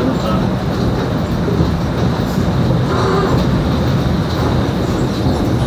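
Passenger train running across a steel bridge, heard from inside the car: a steady, loud rumble of wheels on the rails.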